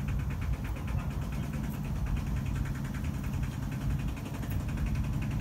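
Steady low rumble of nearby road traffic.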